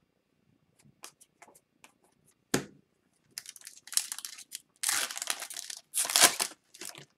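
Foil wrapper of a hockey card pack being torn open and crinkled, in several loud crackling bursts during the second half. Before it, a few light clicks and a single tap from cards being handled.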